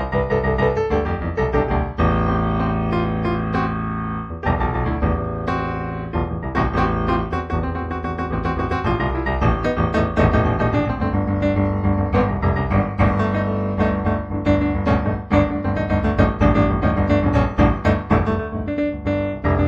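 Improvised solo piano music, a steady flow of notes and sustained chords.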